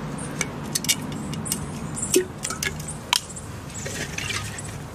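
Water dripping and splashing from a frozen water-balloon ice sphere as it is handled, with several sharp, separate clicks and ticks.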